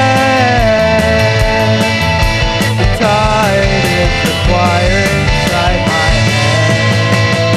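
Rock song in full band arrangement: drums keeping a steady beat under bass and guitars, with a sustained melody line gliding up and down on top.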